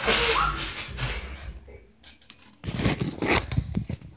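Phone handling noise: rubbing and scraping right on the microphone as the phone is moved. A rush comes first, then after a short pause a dense run of crackling clicks.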